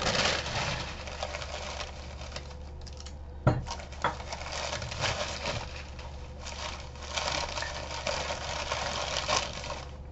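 Newspaper wrapping rustling and crinkling as it is pulled off glassware, in several spells with short pauses, with a sharp knock about three and a half seconds in.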